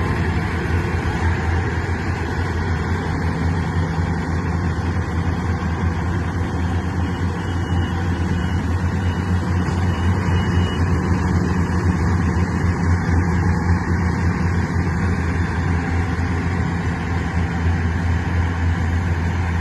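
An engine running steadily at an even speed, with a strong low hum.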